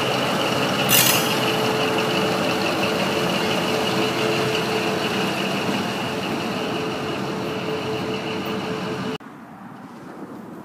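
Alco RS4-TC-1A diesel switcher locomotive running and pushing its train away, a steady engine sound with a held tone, with wheels on the rails and one sharp clank about a second in. It fades a little, then cuts off suddenly near the end, leaving a faint background.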